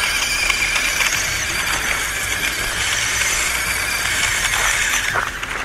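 WPL C-14 1/16-scale RC truck's small electric motor and gears whining steadily under throttle as it drives over gravel. The whine winds down and stops about five seconds in.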